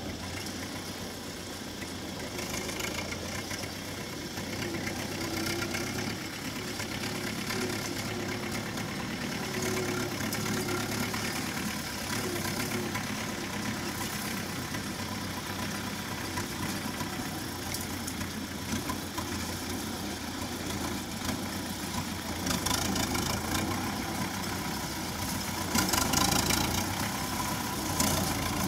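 Belarus 820 tractor's four-cylinder diesel engine running steadily at low speed while hauling a heavily loaded cassava trailer. It grows louder near the end as the tractor comes close.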